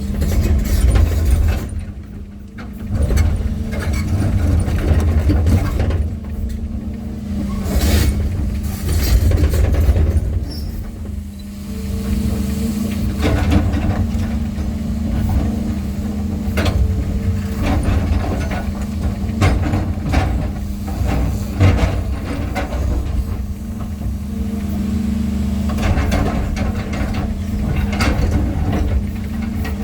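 Heavy diesel engine running steadily with a constant low hum, with scattered sharp knocks over it.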